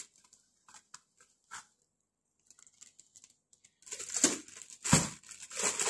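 Plastic zip-top bag rustling and crinkling as ground beef is packed into it: a few faint clicks at first, then a run of louder handling noises in the second half.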